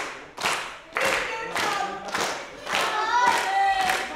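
Wrestling crowd clapping in unison, a steady beat of about two claps a second. In the second half, voices chant along with the claps.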